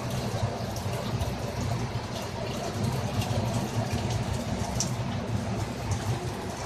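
Aquaponics system running: a steady low pump hum under a continuous wash of trickling, splashing water, with scattered small drip-like ticks.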